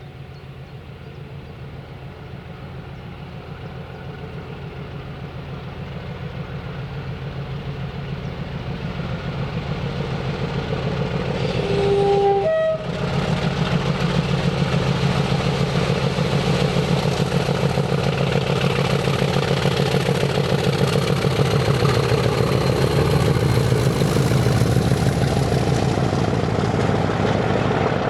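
Diesel locomotive working under power and drawing closer, its engine growing steadily louder. About twelve seconds in it gives a short two-note horn blast, then runs loud and steady as it nears.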